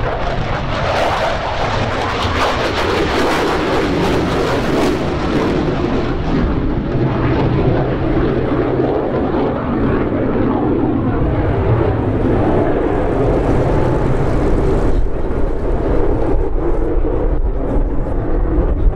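F-15 fighter's twin jet engines running with a loud, steady roar, with a little more hiss in the first few seconds.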